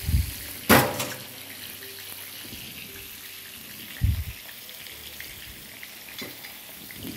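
Kitchen tap running steadily into a steel sink as a pot of boiled potatoes is drained and rinsed. A sharp knock with a short ring comes about a second in, and a dull thud about four seconds in.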